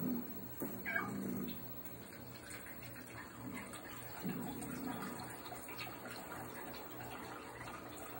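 Wildlife-documentary soundtrack playing through a television speaker between lines of narration: a soft steady hiss with faint rustles, and a short falling tone about a second in.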